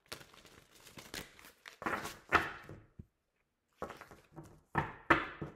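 Tarot cards being shuffled and handled: a run of short papery riffles and snaps, pausing briefly a little past the middle, the loudest ones about two and a half seconds in and near the end.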